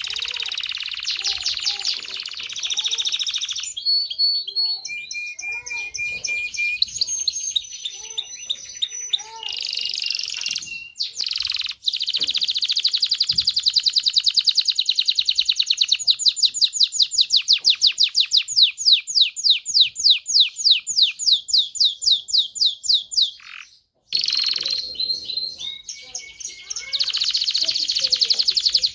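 Domestic canary singing a long, loud song of fast trills and rolling phrases. Near the middle it holds one long trill of rapidly repeated notes for several seconds, and the song breaks off briefly near the end before resuming.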